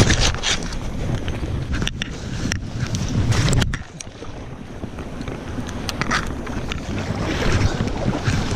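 Wind rumble and rustling on a body-worn action camera's microphone as the wearer walks down through grass. About four seconds in the noise drops to a softer, steady rush of a shallow stream, with scattered handling clicks.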